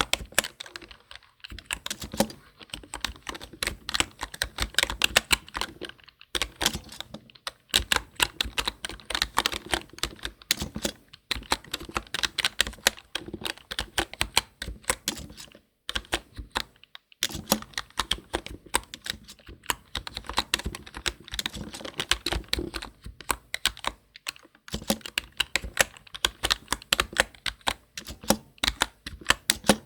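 Computer keyboard typed on in fast, continuous runs of keystrokes, close to the microphone, broken by a few short pauses, the longest about halfway through.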